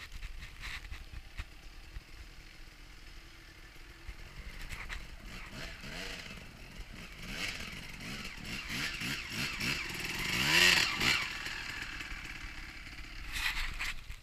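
Suzuki RM250's two-stroke single-cylinder engine revving up and down repeatedly as the dirt bike rides through deep water. It grows louder to a peak about ten seconds in, then fades.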